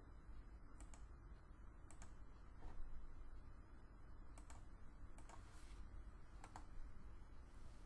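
Faint, scattered clicks of a computer mouse and keyboard: about five sharp single clicks and two brief, softer noisy sounds, over a low steady hum.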